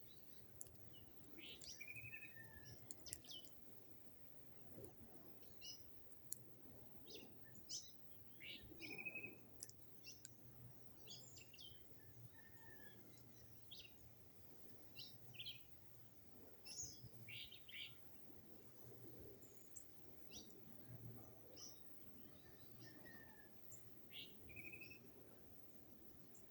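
Birds calling faintly: scattered short high chirps and brief trilled notes, over a low steady background hum.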